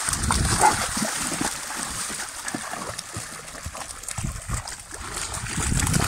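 Young cane corso dogs wading and splashing through shallow river water: uneven churning and slapping of water, with many short low splashes.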